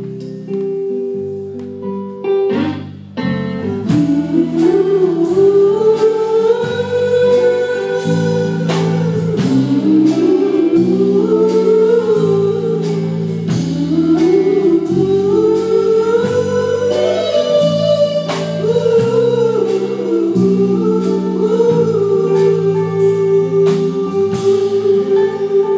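Live band playing the closing section of a slow rock song: a wordless vocal melody rising and falling over held guitar chords, with regular drum and cymbal hits joining about four seconds in.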